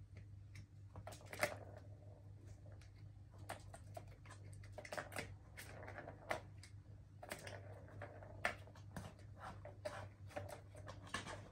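Kittens batting a plastic ball-track tower cat toy: irregular clicks, taps and rattles as the balls knock around the tiered plastic track and paws strike the toy. A faint steady low hum runs underneath.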